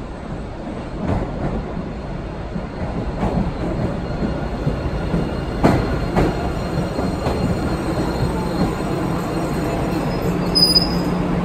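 MBTA Blue Line subway train (0700-series cars) pulling into an underground station, its rumble growing louder as it comes along the platform, with sharp clacks of the wheels over rail joints. A brief high wheel squeal comes near the end.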